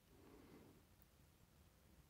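Near silence: room tone, with one faint, brief sound about half a second in.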